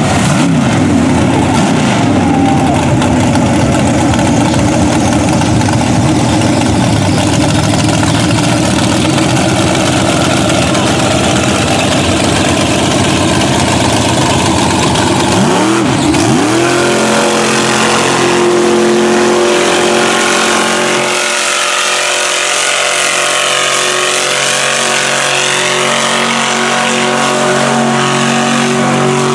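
Mud truck's engine running wide open at high revs, its pitch swooping down and back up just after the start and again about halfway through.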